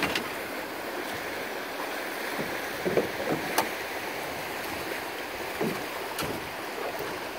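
Steady rush of river water moving past a drift boat, with a couple of sharp clicks about halfway through and again near the end.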